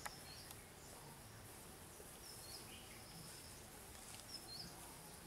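Quiet outdoor ambience: a faint steady hiss with a few short, high bird chirps, about three in all.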